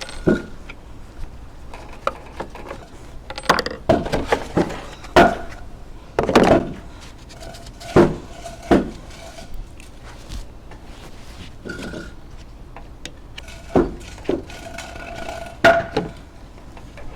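Tools and a metal engine cover on a lawnmower being handled and taken off: about a dozen irregular knocks and clinks of metal, some leaving a short ringing.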